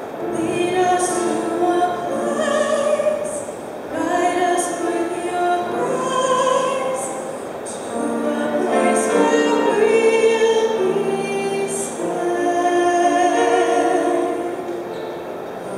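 A young woman singing a solo ballad into a handheld microphone, in sustained phrases with a few short breaks, over grand piano accompaniment.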